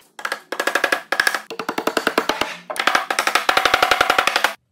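Music with rapid, rhythmic drum hits over pitched tones, cutting off abruptly near the end.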